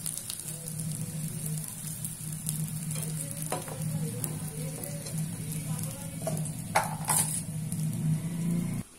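Lauz deep-frying in hot oil in a wok, a steady sizzle, with a few short knocks of a wire skimmer against the pan. The sound cuts off abruptly just before the end.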